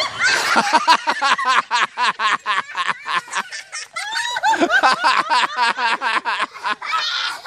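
A group of people laughing hard in rapid, high-pitched bursts, several a second, with no letup.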